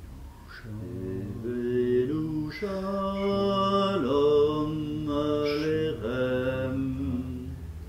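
Slow singing in long held notes, a chant-like melody that moves in steps from note to note, without clear words.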